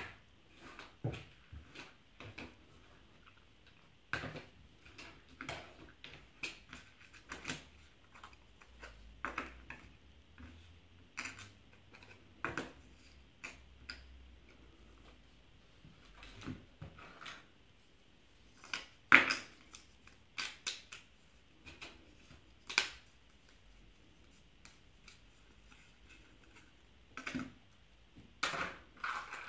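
Board game pieces being handled on a wooden table: cardboard tiles and 3D-printed plastic trays picked up, set down and shuffled, giving irregular light clicks and taps. The loudest is a sharper knock about nineteen seconds in.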